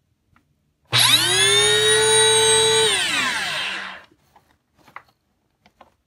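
Bissell PowerForce bagless upright vacuum cleaner's motor switched on: it spins up within a fraction of a second to a steady high whine, runs for about two seconds, then is switched off and winds down with a falling pitch over about a second.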